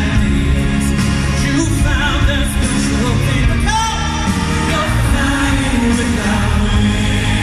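Male pop vocal group singing live into microphones over band accompaniment, amplified through an arena's sound system.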